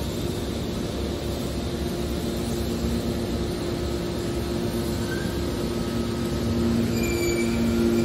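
Hydraulic metal shear baler running: a steady mechanical drone from its hydraulic power unit with a steady hum that grows a little louder near the end. A few short high squeaks come in during the second half.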